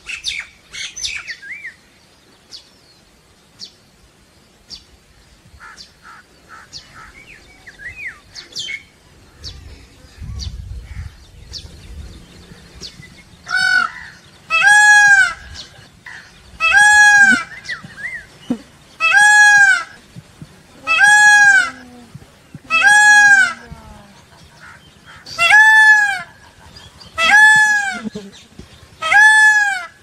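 Indian peafowl calling: a series of about nine loud, piercing honking calls, one every second or two and sometimes in pairs, starting about halfway through. Before them come only faint scattered bird chirps.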